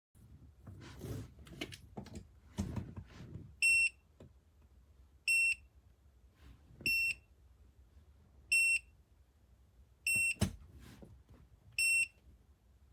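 Electronic beeper on a space heater's control panel giving six short, identical high beeps about every second and a half, after a few seconds of knocking and rustling as the unit is handled.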